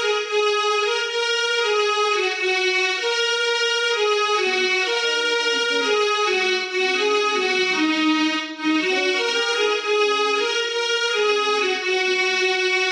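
Small mini-key electronic keyboard playing a one-note-at-a-time melody of held, sustained notes that step up and down in pitch, with brief breaks between phrases.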